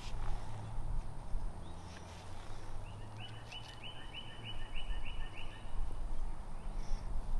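A small songbird sings a quick, even series of about eight repeated notes, about four a second, starting around three seconds in, over a low steady rumble.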